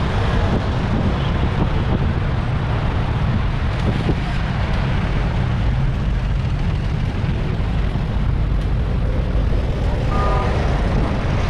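Steady low wind rush buffeting an action-camera microphone on a moving fixed-gear bike, mixed with road and traffic noise. A brief faint pitched sound comes through about ten seconds in.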